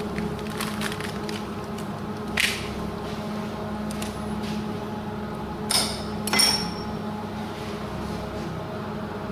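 A steady low hum with a few short, sharp handling sounds: one about two and a half seconds in and two close together around six seconds in, as chocolate decoration strips are handled on a plastic sheet and cut with a knife.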